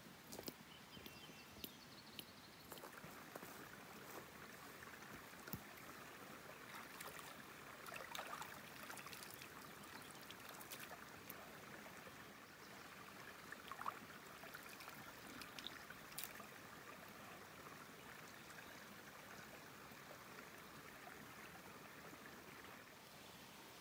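Faint, steady trickle of a small creek, with a few light clicks here and there.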